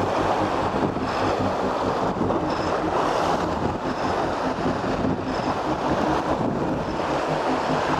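Choppy sea waves washing and breaking against shoreline rocks, with wind buffeting the microphone: a steady rushing noise.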